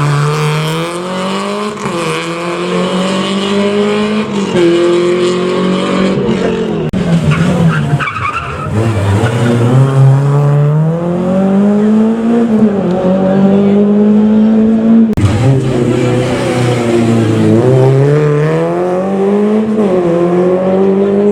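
Rally car's engine revving hard on a gravel stage, its pitch climbing and dropping sharply again and again through gear changes and lifts for corners.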